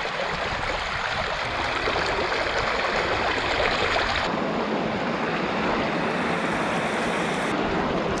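Heavy rushing water at a rain-swollen reservoir dam, a dense steady roar that changes character abruptly about four seconds in and again near the end.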